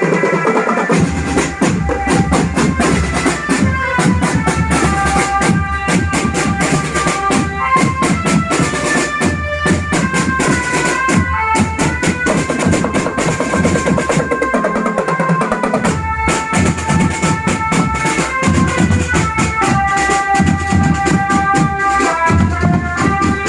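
Marching band playing: bass and snare drums beating under a melody of held notes. The low drums come in about a second in and drop out briefly around the middle.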